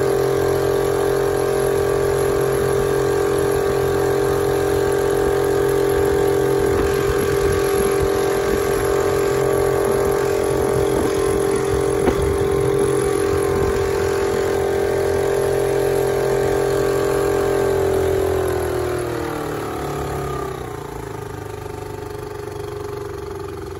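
Honda 2 hp air-cooled four-stroke outboard running steadily under throttle, pushing the boat into the wind. Near the end it is throttled back, its pitch sliding down and the sound growing quieter as it eases toward idle.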